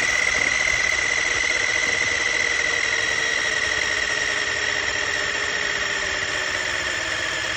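Small electric motor of a toy-grade RC monster truck whining at steady throttle while the truck sits stuck nose-up against a snow pile, its pitch slowly sinking.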